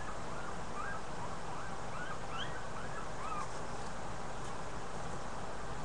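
McNab cattle-dog puppies squeaking: a run of about seven short, faint, high squeaks, each rising and falling, over the first three seconds or so, above a steady hiss.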